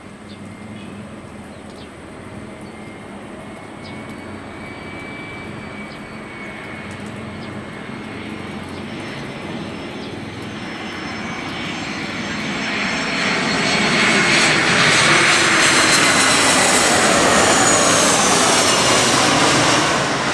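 Jet airliner flying low on approach, its engine noise building steadily for about fourteen seconds to a loud pass overhead, with a high engine whine that falls in pitch as it goes by.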